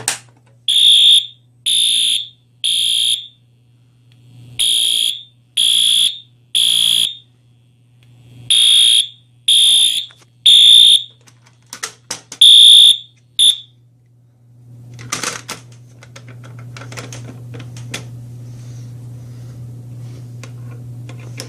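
Fire alarm sounding a high-pitched beep in groups of three with a pause between groups, the temporal-3 evacuation pattern, for three full rounds. A few broken beeps follow and it cuts off about 13 seconds in. Handling and rustling noise over a steady low hum follows.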